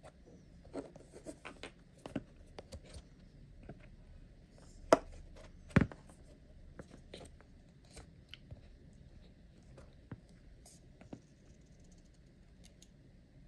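Handling of radio-controlled car wheels with rubber tyres: scattered light clicks and taps of plastic rims and rubber, with two louder knocks about five and six seconds in as a wheel is set down on the wooden floor.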